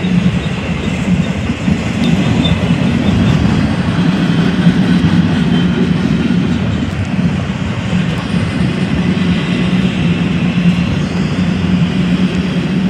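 A freight train of empty double-stack well cars rolling past close by: steel wheels running on the rails in a steady, loud noise, with faint high ringing tones above it.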